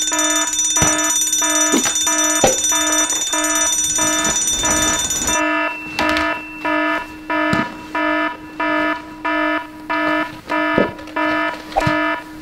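Electronic fire alarm beeping steadily, about one and a half pitched beeps a second, sounding the call to the trucks. A high ringing layer over the beeps cuts off about five seconds in, leaving the beeps alone.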